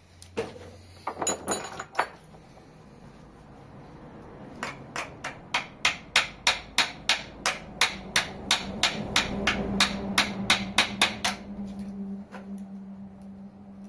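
Hammer striking metal parts of a Subaru WRX five-speed manual gearbox during teardown. A few scattered knocks come first, then a steady run of sharp blows at about three a second for several seconds. A low steady hum comes in partway through.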